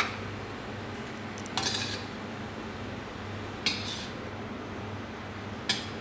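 Metal ladle scraping and clinking against a large steel cooking pot as plov rice is scooped out: four short sharp strikes about two seconds apart, the second a longer scrape, over a steady low hum.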